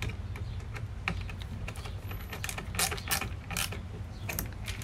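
Irregular light clicks and taps of hand tools and wire being worked at the terminals of an AC breaker panel, over a steady low hum.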